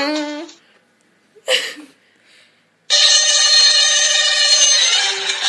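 A sound effect playing through speakers: a brief burst of noise, then, about three seconds in, a loud steady ringing tone with many overtones, like a telephone ringtone.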